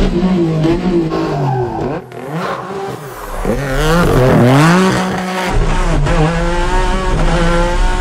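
Ford race car engine revving hard, its pitch climbing and dropping again and again as the car is driven flat out and drifted through bends, loudest about halfway through.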